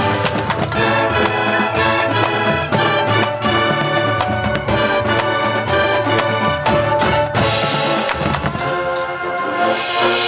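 High school marching band playing: massed brass chords over drum and front-ensemble percussion hits.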